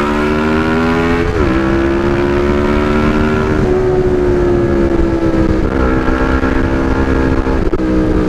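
CFMoto 400NK's parallel-twin engine running under way, its note climbing, then dropping sharply about a second and a half in as it shifts up, then holding fairly steady with two brief dips, over a low wind rumble.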